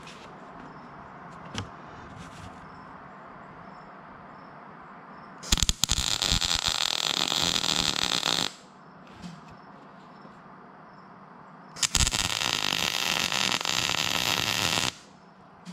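MIG welding arc crackling in two bursts of about three seconds each, a few seconds apart: tack welds being laid on a car's inner front structure.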